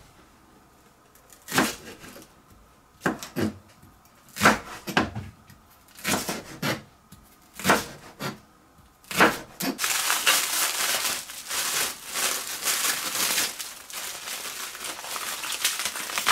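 Kitchen knife chopping a long green onion on a cutting board: about nine single strokes, a second or so apart. From about ten seconds in, steady crinkling of plastic cling film being handled and pulled off a napa cabbage.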